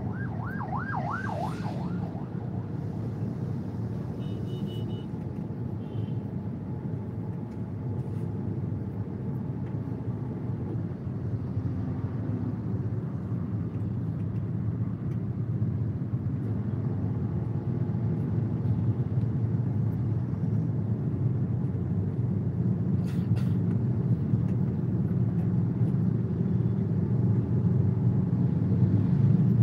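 Road traffic heard from inside a car in a slow queue: a steady low rumble of idling and creeping engines, growing somewhat louder near the end. In the first two seconds a fast-warbling electronic signal sounds, about four wails a second.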